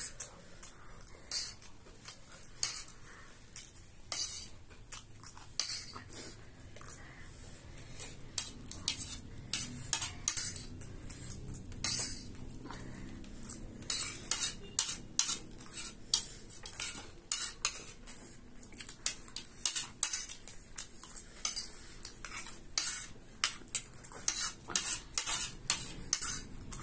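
Small metal spoons clinking and scraping against ceramic plates as two people scoop food, a quick, irregular run of sharp clicks.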